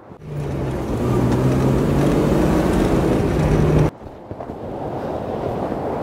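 Surf washing over rocks with heavy wind buffeting the microphone: a loud rush with a low hum in it, which cuts off abruptly about four seconds in to quieter surf and wind.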